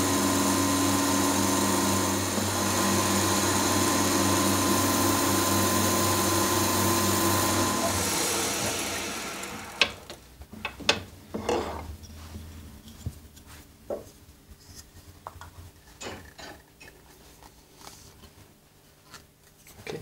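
A power tool runs steadily with a hum and a rubbing hiss while the cork on a clarinet joint's tenon is fitted to size. It dies away about nine seconds in, and scattered light clicks and taps of handling follow.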